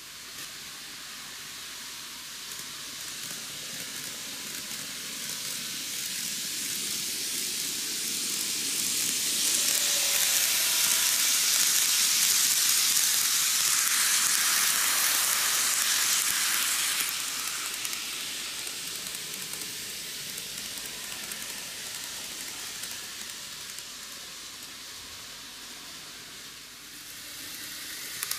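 N gauge model Odakyu Romancecar running past on curved track: a hissy rolling noise of metal wheels on rail and the small motor. It builds as the train approaches, stays loudest for several seconds while it passes, then fades. Near the end it rises again as the next train approaches.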